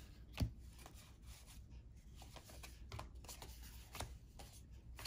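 Trading cards being handled by hand, with soft taps and slides of card stock as they are sorted and set down, and one sharper tap about half a second in.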